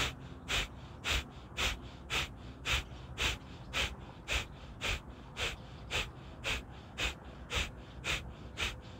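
Kapalbhati fire breathing through one nostril, the other held shut: a steady run of short, forceful nasal exhalations, evenly spaced at about two a second.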